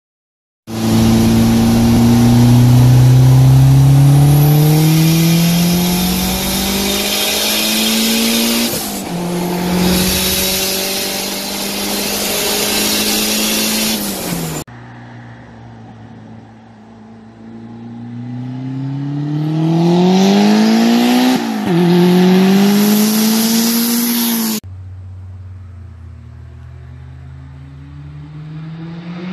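Turbocharged DSM's 4G63 four-cylinder engine, fitted with a Holset HY35 turbocharger, accelerating hard as heard from inside the car. The note climbs through the gears and drops at each upshift, in two separate runs. Near the end it is quieter, heard from the roadside as the car approaches with its note rising.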